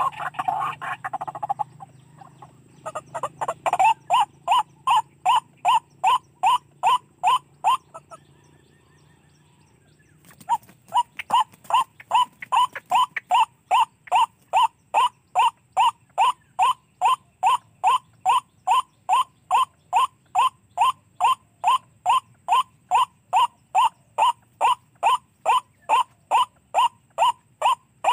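White-breasted waterhen's "wak-wak" call played from a radio as a trapping lure: short, slightly falling notes repeated about twice a second in an even, unbroken series. A louder burst of calling opens, and the series pauses for about two seconds midway before resuming.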